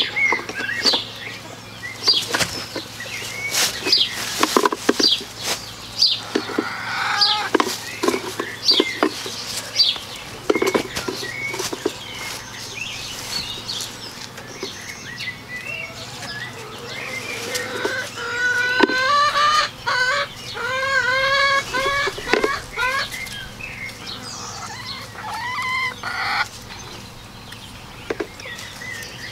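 Domestic hens clucking, with a quick run of repeated calls about two-thirds of the way through. Earlier, many short sharp scrapes and clicks come from a knife working on the hide of a hanging pig carcass.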